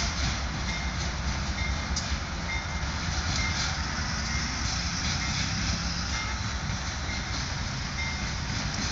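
Two GE AC4400CW diesel-electric locomotives running light, with no cars behind them, their diesel engines droning steadily as they move away down the track.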